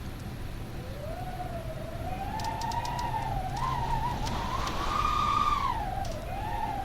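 Howling wind: a wavering, whistling howl that climbs slowly in pitch, peaks about five seconds in, dips and rises again, over a low rumble.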